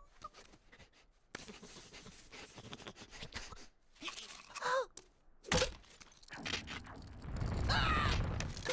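Cartoon sound effects: a squirrel character's claws skidding and scraping over ice, a short squeaky gasp, and a sharp hit about five seconds in. A low rumble of ice cracking follows, with a wavering whimpering cry over it near the end.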